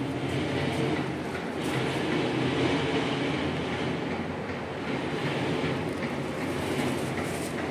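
Steady rumbling noise with a faint low hum, even in level and with no distinct strokes.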